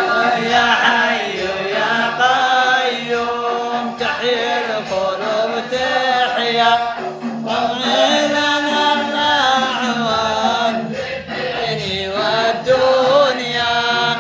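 Male devotional chanting of an Arabic mawlid hymn in praise of God, in long wavering sung lines.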